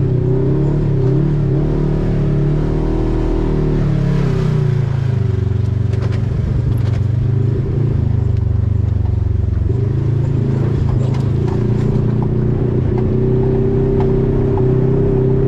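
Side-by-side UTV engine running while driving over a rough dirt trail, heard from on board: its note wavers, drops about four seconds in and rises again to a steadier, higher note around ten seconds. A few short clatters from the bumpy ride.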